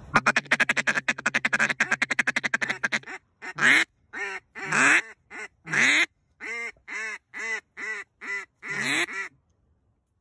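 Hand-blown duck call: a fast rattling chuckle for about three seconds, then a run of about ten separate quacks, worked to call circling ducks in.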